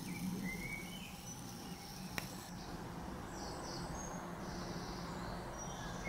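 Outdoor ambience with a steady low hum, over which birds give short chirps and whistles; a single sharp click about two seconds in.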